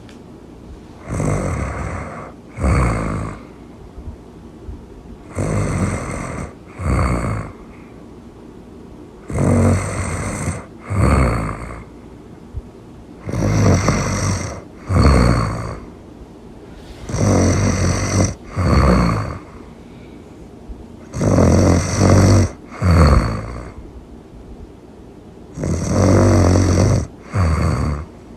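Loud, cartoonish snoring from a sleeping girl character. There are seven regular snore cycles about four seconds apart, each a longer snore followed straight away by a shorter one.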